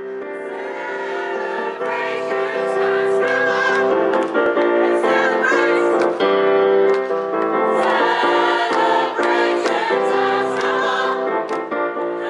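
Mixed choir of men and women singing together in harmony, with long held notes.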